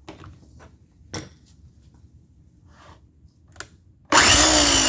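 A few light clicks of handling, then about four seconds in a Troy-Bilt 16-inch electric chainsaw starts up suddenly and runs loudly, its whine falling in pitch. It runs now that the chain brake is released and the worn drive sprocket gear has been replaced.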